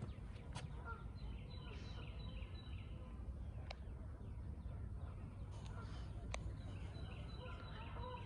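Small birds chirping in runs of short, repeated notes, about three a second, over a steady low background rumble, with a few sharp clicks.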